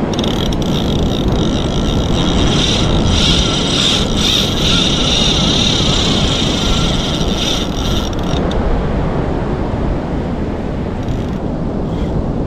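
Fishing reel's drag giving line with a steady high-pitched whine as a hooked shark runs, the line already down to the backing; the whine stops about eight seconds in. Wind on the microphone throughout.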